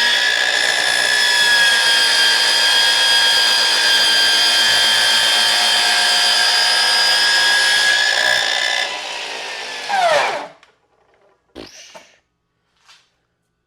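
Ryobi 36-volt cordless miter saw running at full speed with a steady whine while cutting through a 2x4. About ten seconds in it is switched off and the blade's pitch falls fast as the blade brake stops it, a sign the brake is working again; a few light knocks follow.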